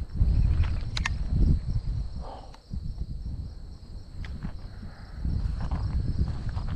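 Footsteps of a person walking outdoors, heard as irregular low thuds, with crickets trilling steadily high in the background.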